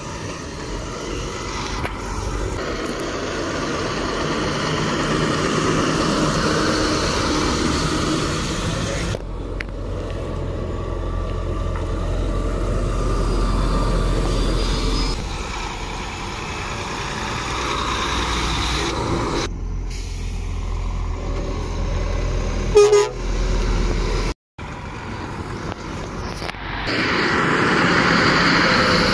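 Lorries with diesel engines running and driving past, a deep rumble that swells and fades across several spliced clips. A short horn toot sounds about two-thirds of the way through, the loudest moment.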